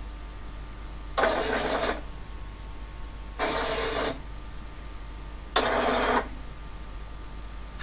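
HP9862A X-Y plotter's servo motors driving the pen arm and carriage in three separate moves. Each move is a short burst of motor noise lasting under a second, with a pause of about a second and a half before the next, set by a programmed delay between moves. The third move starts with a sharp click.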